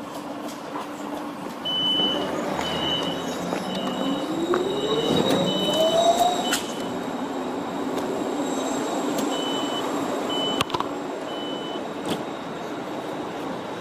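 Siemens NF8 Combino tram with a run of short, evenly spaced high warning beeps, about six, then three more later. Partway through the first run an electric drive whine rises steadily in pitch.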